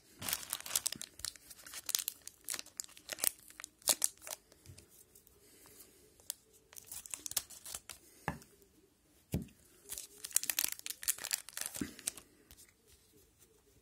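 Foil wrapper of a hockey card pack being torn open and crinkled, in short crackling bursts that come and go, with two sharper snaps about eight and nine seconds in.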